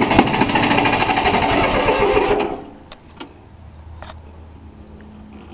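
Three-cylinder Yanmar diesel turned over by its starter motor, a fast, even cranking that stops about two and a half seconds in without the engine catching. It fails to fire because air is in the fuel lines, which were not bled.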